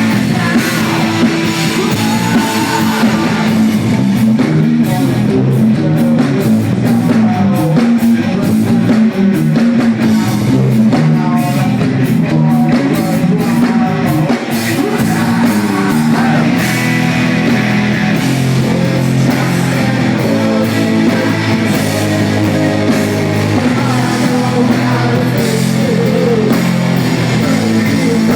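Heavy rock band playing loudly through a live PA during a sound check: distorted electric guitars and a pounding drum kit, steady and dense throughout.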